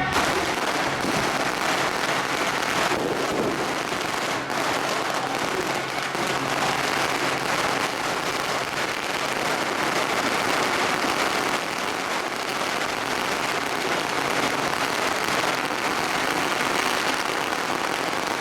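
A long string of firecrackers going off, a dense continuous crackle of rapid pops.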